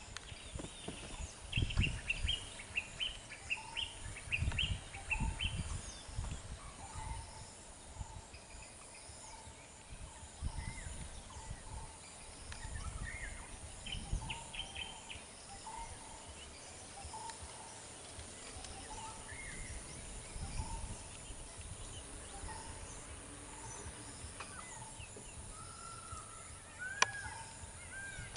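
Birds calling in roadside jungle: one bird repeats a short call about once a second, while others add bursts of higher chirps and whistles, over irregular low rumbles.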